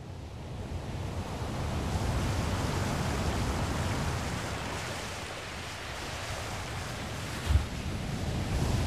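Surf and wind: a steady rushing that builds, swells and eases, with wind rumbling on the microphone and a brief thump near the end.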